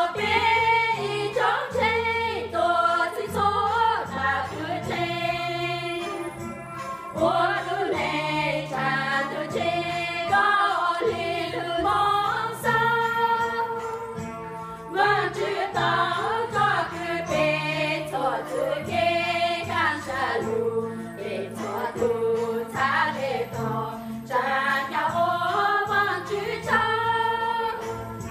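A small group of women singing a hymn together, with a low steady accompaniment underneath.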